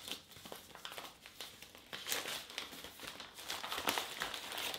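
Newspaper and plastic bag crinkling and rustling in irregular crackles as a newspaper-wrapped bundle of vegetables is handled and unfolded by hand.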